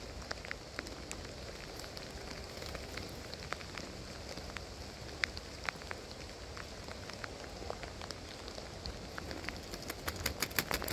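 Steady rain falling: a soft, even hiss with scattered sharp ticks of single drops striking, which come thick and fast for about a second near the end.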